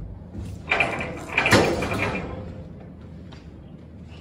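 Metal clanking and rattling from a box truck's roll-up rear door and its latch, two loud clanks less than a second apart near the start, then fading.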